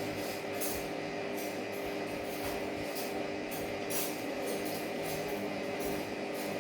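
Close-up eating sounds: short, irregular crunches and rustles of roasted chicken being eaten and handled, over a steady background hum.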